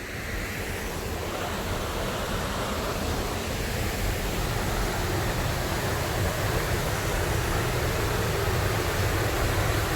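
Waterfall rushing in a steady roar of falling water, growing slightly louder.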